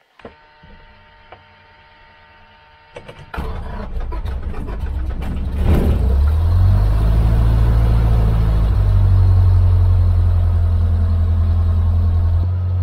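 Cessna 152's Lycoming O-235 four-cylinder aero engine being started. After a faint steady hum, the starter cranks it suddenly about three seconds in. The engine catches near six seconds and settles into a steady idle.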